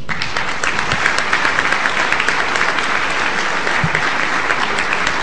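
Audience applauding: dense, steady clapping from a large crowd, breaking out as a formal closing declaration ends.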